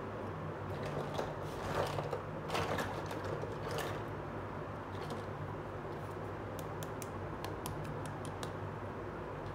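Small plastic toy pieces being handled: rustling and clicks for the first few seconds, then a quick run of about ten light, sharp plastic clicks, over a steady low hum.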